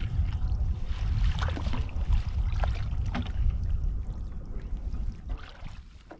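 Small boat moving through floodwater: a steady low rumble with water splashing, dying down near the end.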